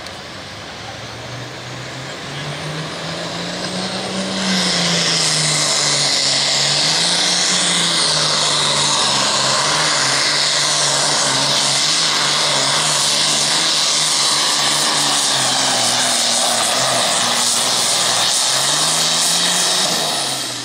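John Deere super farm pulling tractor's diesel engine under full load on a pull. The engine note climbs over the first few seconds and jumps to full power about four seconds in. It runs loud and steady, rising and dipping a little, then drops off about twenty seconds in as the pull ends.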